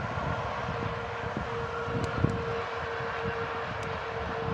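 Distant passenger train hauled by a PKP EP07 electric locomotive rolling past, a steady hum over a wash of rolling noise, with wind buffeting the microphone.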